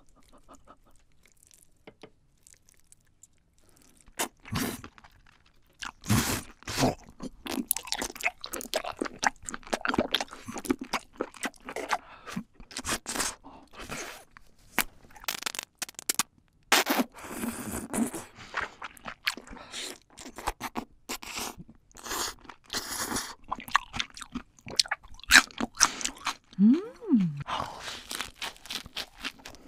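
Close-up mouth sounds of a person chewing raw octopus tentacles and squid: wet, sticky smacking and crunching in quick irregular bites, starting about four seconds in.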